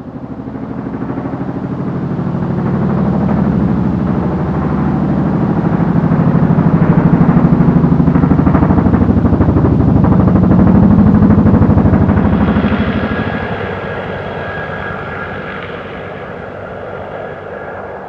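A passing vehicle sound effect: a heavy, fast-pulsing mechanical noise that rises out of silence, is loudest in the middle, then fades, with steady high-pitched tones coming in as it dies away.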